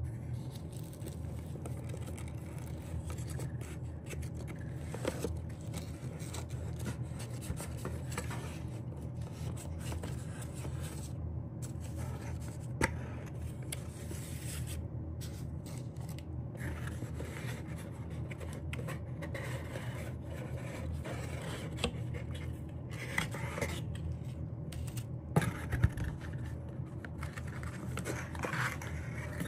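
An album's packaging being handled and opened by hand: scraping and rustling of card and wrapping, with a few sharp clicks, over a steady low hum.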